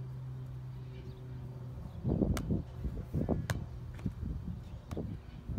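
Volleyball struck by players' hands three times during a rally, sharp slaps a little over a second apart, over a low, uneven rumbling noise.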